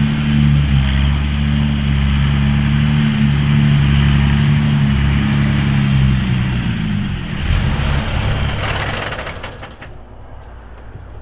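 Mercedes Unimog U1700L's diesel engine driving along, loud and raspy with its exhaust resonator off. About seven seconds in the engine note gives way to a rough crackling rumble, and the sound drops much quieter near the end.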